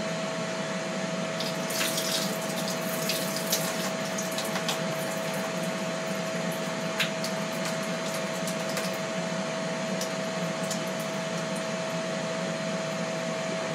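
Liquid splashing and trickling as the juice is poured off canned yams, mostly in the first few seconds, over the steady whir and hum of a running kitchen appliance fan.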